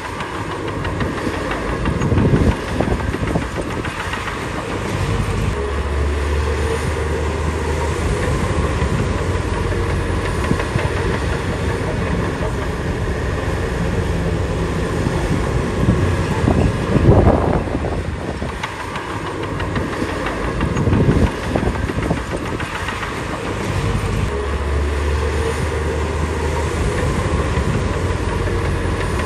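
Crawler bulldozer's diesel engine running steadily, with its steel tracks clanking and a few louder knocks along the way.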